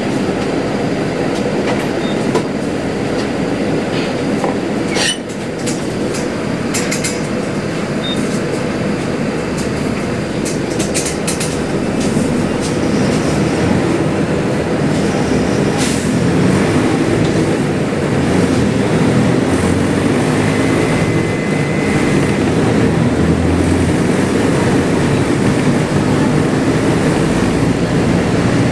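Diesel engine of a Mercedes-Benz OF-1721L city bus running loudly under way, with a steady low drone and rattling clicks from the body. The engine note grows gradually louder through the second half.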